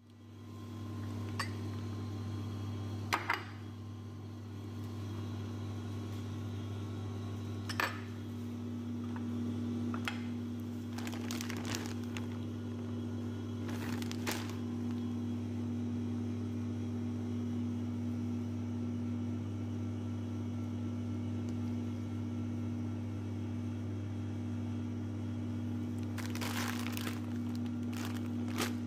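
A steady, even hum from a kitchen appliance motor, with scattered clicks and rustles of handling. Near the end, a plastic bag of penne pasta crinkles as it is handled.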